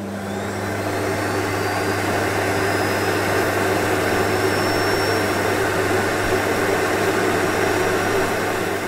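Steady, loud rushing noise with a constant low hum underneath, like a machine or engine running.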